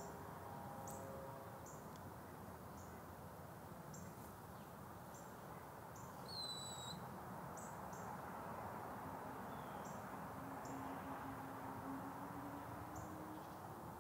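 Quiet outdoor ambience: short high chirps about once a second and one brief whistled bird call about six seconds in, over a low background hum, with a faint low drone in the later seconds.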